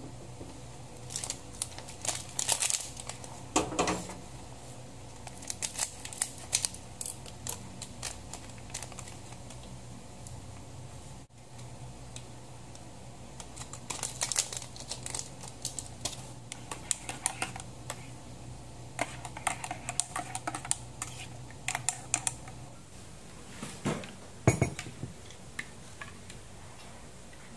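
Crinkling and rustling of a plastic sauna suit and the handling of a paper sachet: its powder tipped into a ceramic mug and then stirred. These come as scattered bursts of small clicks and crackles, with one sharper knock about 24 seconds in.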